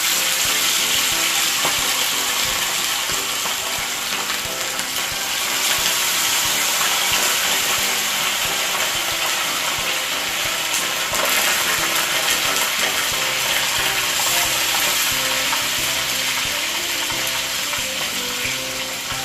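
Whole fish deep-frying in hot oil in a skillet: a loud, steady sizzle and crackle that starts suddenly as the fish goes into the oil.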